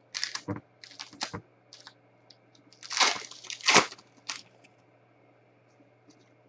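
A trading-card pack's wrapper crinkling and tearing open in several sharp crackles, with a louder crinkling rustle about three seconds in. Near the end there are only light ticks as the cards are handled.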